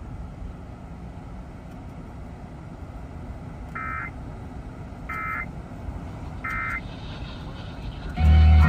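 Weather-radio broadcast hiss with three short, buzzy data bursts about 1.3 s apart: the SAME end-of-message code that closes an emergency alert. Near the end a much louder low hum with higher tones starts.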